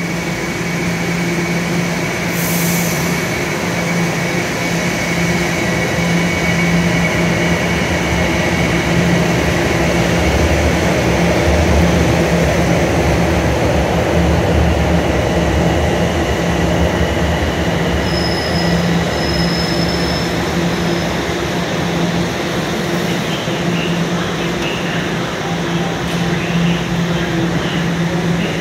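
Underground subway station sound: a steady, loud rumble and hum, with a thin high whine that fades away over the first ten seconds or so.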